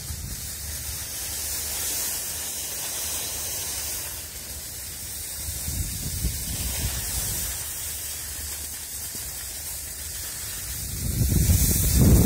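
Skis sliding over packed snow, a steady hiss. A loud wind rumble on the microphone swells near the end.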